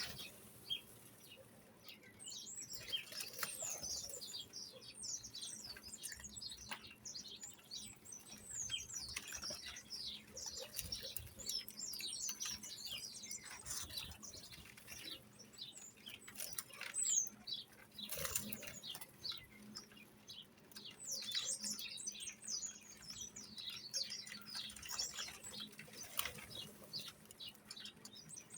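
Many small birds chirping and chattering at once, a dense run of short high calls and trills, broken by a few brief noisy strokes.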